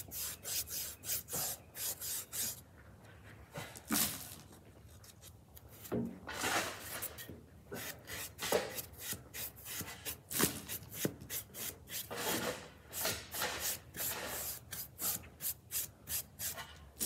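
Foam paintbrush rubbing paint onto a small craft surfboard in quick, scratchy back-and-forth strokes, about two or three a second, with a lull of a few seconds near the start.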